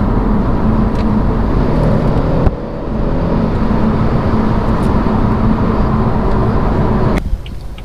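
BMW F30 328i's turbocharged four-cylinder engine accelerating hard, heard from inside the car as a steady engine hum over road noise. The sound dips briefly about two and a half seconds in, like a gear change, and eases off about seven seconds in. The run tests for an exhaust noise that the owner hears mainly under heavier acceleration and blames on the exhaust.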